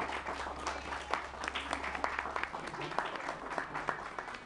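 Small audience applauding: many hands clapping in a dense patter that stops near the end.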